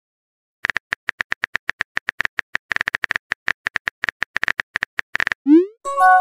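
Phone-keyboard typing sound effect: rapid, irregular clicks as a text message is typed. Near the end comes a short rising swoosh as the message is sent, followed by a brief chime.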